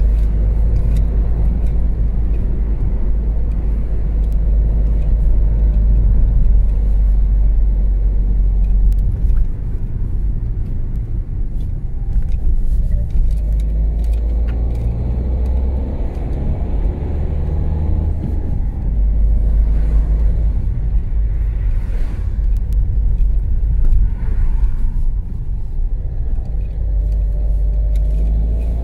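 Car interior driving noise: a steady low rumble of engine and tyres on the road, with the engine note rising and falling a couple of times, around the middle and again near the end.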